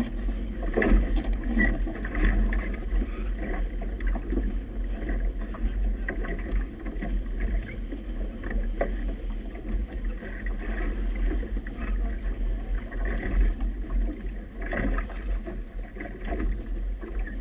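Choppy river water washing and slapping irregularly against a small boat's hull, with a steady low rumble underneath.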